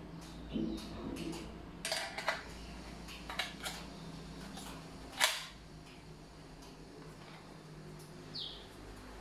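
Sharp plastic clicks and knocks as an air fryer's pan, basket and handle are handled and fitted together, several in the first half with the loudest about five seconds in.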